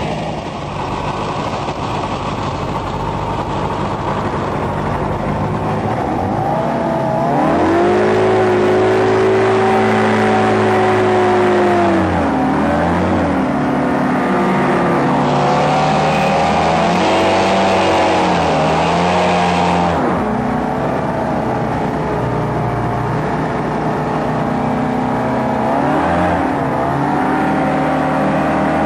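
Hovercraft engine and lift/thrust fan idling, then revving up about seven seconds in and running hard as the craft travels. The pitch dips and climbs again a few times as the throttle is eased and opened.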